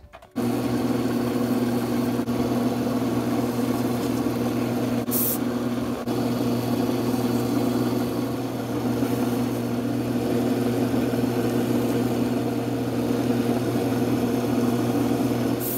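Small wood lathe's electric motor switched on and running at a steady speed with an even hum as it spins a pen blank. A brief hiss about five seconds in.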